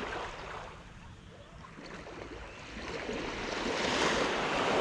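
Small waves washing onto a sandy beach at the water's edge, swelling into a louder wash near the end.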